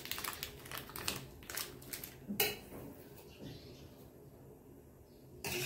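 Light clicks and taps of a utensil, then a knife stirring rice in water in a steel kadhai. A louder swishing and scraping starts suddenly near the end.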